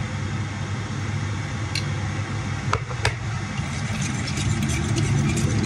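Light clicks and clinks of a utensil against a ceramic bowl as a dressing is stirred, with two sharper clicks about three seconds in, over a steady low machine-like hum.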